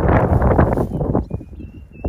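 Wind buffeting the microphone in rough, rumbling gusts that ease off a little over a second in. A thin, high steady call starts near the end.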